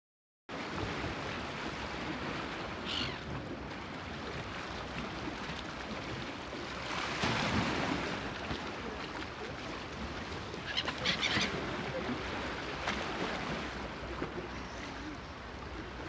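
Wind and choppy lake water washing against a rocky shore, with gulls calling a few times over it: about three seconds in, around seven to eight seconds, and twice near eleven seconds.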